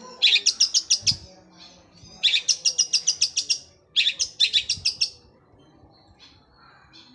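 Long-tailed shrike (cendet) singing three rapid trills, each a fast run of about ten sharp high notes a second, the sewing-machine-like roll its keepers prize; fainter scattered chirps follow near the end.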